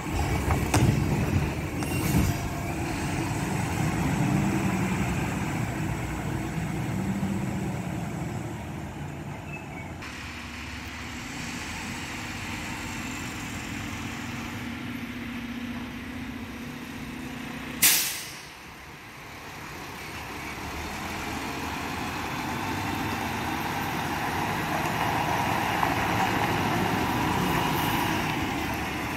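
Mack LR garbage truck's engine running as the truck pulls away and fades into the distance, then growing louder again as it drives back toward the listener. About eighteen seconds in, a single brief loud burst of noise cuts across it.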